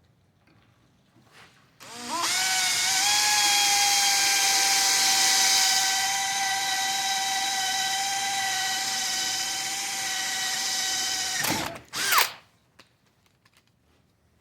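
Handheld electric power tool spinning up about two seconds in and running with a steady high whine over a hiss for about nine seconds, then switched off, with a short second burst right after.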